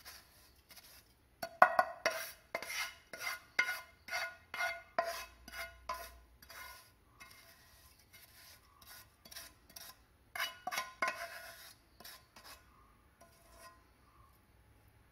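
Wooden spatula scraping roasted grated coconut out of a non-stick pan and knocking on the pan and a steel mixer-grinder jar: a quick run of knocks with a short metallic ring, then a second run about ten seconds in.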